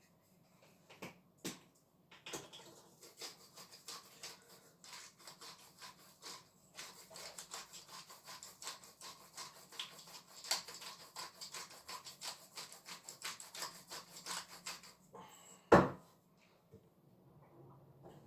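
Pepper mix being dispensed from its container onto a raw steak: a long run of quick, uneven crunching clicks lasting about thirteen seconds, followed near the end by a single knock, the loudest sound.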